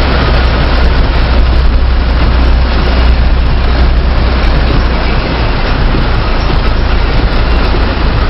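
Steady noise inside a car driving through floodwater in heavy rain: a low, constant drone of the engine and road under a dense, even hiss of rain and water.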